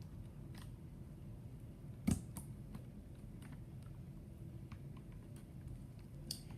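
Slime being squeezed and handled, making scattered small clicks and pops, with one louder knock about two seconds in.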